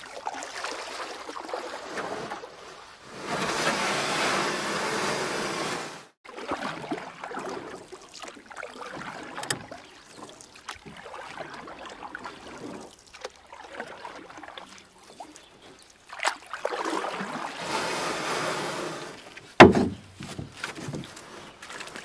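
Kayak paddling: paddle strokes splashing and water sloshing along a plastic kayak's hull, with two louder stretches of splashing a few seconds long. A single sharp knock near the end is the loudest sound.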